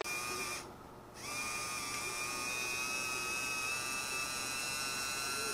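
Small electric motor running with a steady, high-pitched whine, a little loud. It cuts out briefly about half a second in and starts again about a second later.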